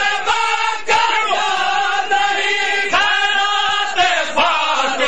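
A crowd of men chanting a noha together in long held phrases, with a few sharp slaps at irregular intervals: matam, hands striking chests.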